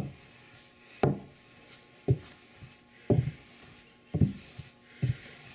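Cloth-covered lefse rolling pin rolling potato dough on a pastry-cloth-covered Masonite board: a dull thump about once a second as each stroke lands, with a soft rubbing of cloth between.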